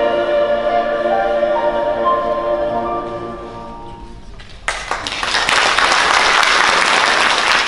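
Mixed choir holding the final chord of a song, fading away about four seconds in; a little later audience applause breaks out suddenly and continues.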